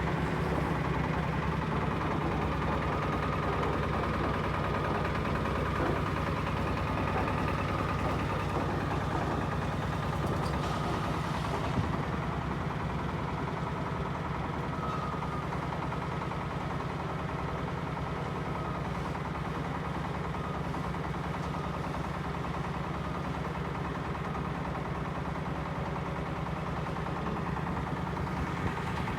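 Concrete mixer truck's diesel engine running steadily at idle, with a brief hiss about ten seconds in.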